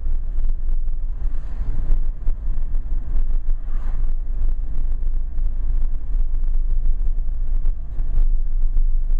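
Car cabin noise while driving: a steady deep rumble of engine and road, with many short irregular crackles and knocks.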